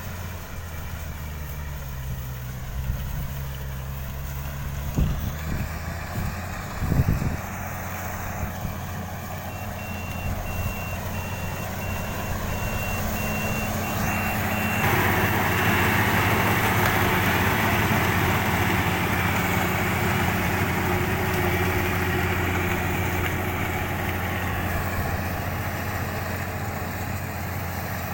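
Kubota DC-35 combine harvester's diesel engine running steadily, with a few knocks about five and seven seconds in. An electronic beeper pulses rapidly for several seconds about a third of the way through, and a rushing machine noise grows louder about halfway through.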